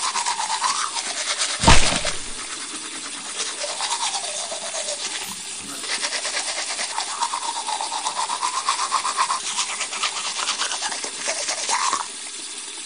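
Manual toothbrush scrubbing teeth with quick back-and-forth strokes, a wet, rapid scratching through a mouthful of foam. A single loud thump comes about two seconds in.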